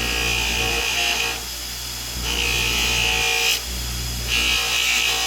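Buffing wheel motor running steadily while acrylic is pressed against the wheel charged with red rouge, a hissing rub coming and going three times, about every two seconds. This is the machined acrylic edge being polished clear.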